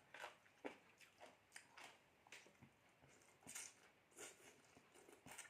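Faint chewing and mouth sounds of a person eating: short crunching and smacking noises at irregular intervals, about two a second.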